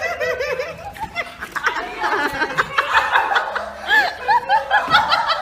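People laughing and giggling in quick, short bursts, several voices overlapping.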